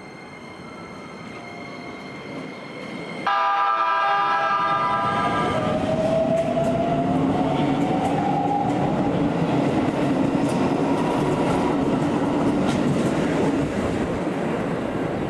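Keikyu 1000-series electric train pulling out of a station: its traction motors whine, rising in pitch as it accelerates, over the rumble and clatter of the cars rolling past on the rails. About three seconds in, a loud tonal signal starts suddenly and fades over a couple of seconds.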